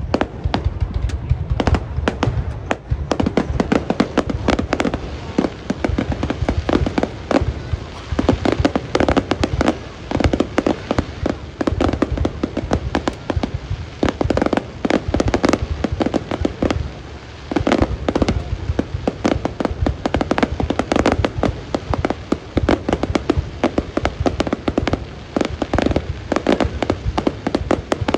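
Fireworks display going off in a dense, continuous barrage of bangs and crackles over a steady low rumble, easing briefly about two-thirds of the way through.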